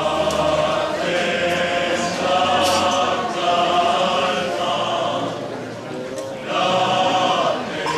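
A choir singing slowly in long held notes, with a short break about six seconds in.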